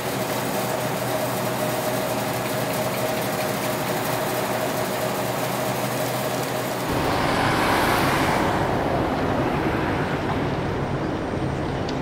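Street traffic noise: a steady rush, with a low rumble coming in suddenly about seven seconds in and a vehicle passing, loudest about eight seconds in.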